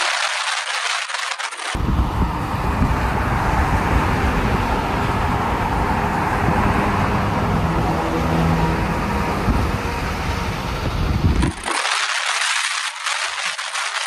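Road traffic: a steady rush of passing vehicles with a faint engine hum about halfway through. The low end drops out abruptly for the first two seconds and again near the end, leaving a thin hiss.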